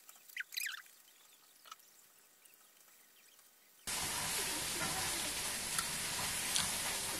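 Near silence for the first few seconds, broken by one brief high squeak under a second in. Then a steady room hiss sets in, with faint ticks of a metal utensil and soft eating sounds as a piece of kimbap is picked up and eaten.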